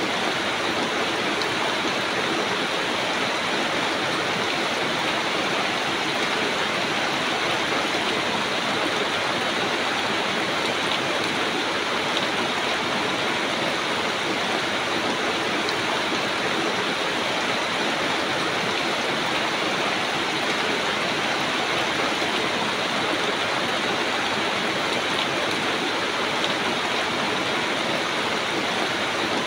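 Steady rain falling on the broad leaves of banana plants, an even hiss of water that holds at one level throughout.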